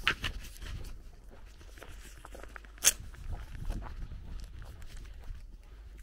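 Footsteps on a gravel lane, an uneven run of short crackles, with one sharp click about three seconds in.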